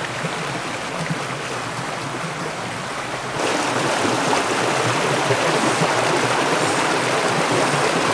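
Steady rushing of a flowing stream, louder from about three seconds in.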